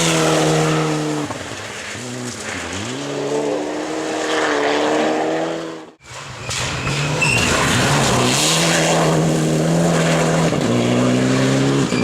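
Rally car engine running at high revs, easing off about a second and a half in and then revving back up. The sound cuts out abruptly about halfway through, then a rally car engine comes back in at full throttle, with a gear change near the end.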